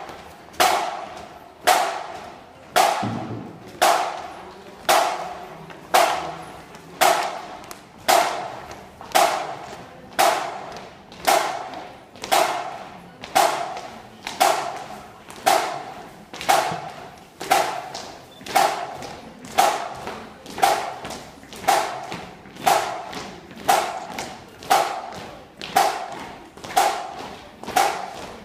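A drum struck alone at a steady beat of about one stroke per second, each stroke a sharp hit with a short ringing tail, as a band drum beats time.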